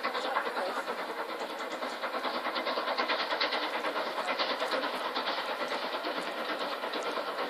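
The Jacobite's steam locomotive chuffing as it hauls its train, a rapid, regular beat of exhaust beats over a hiss.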